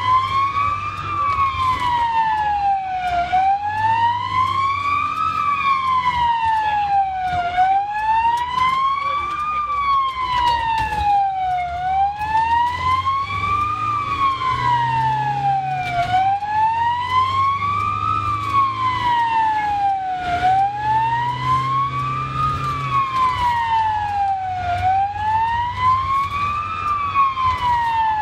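Ambulance siren in a slow wail, rising for about two seconds and falling for about two seconds, over and over. It is heard from inside the ambulance's cab, with the vehicle's low engine hum underneath.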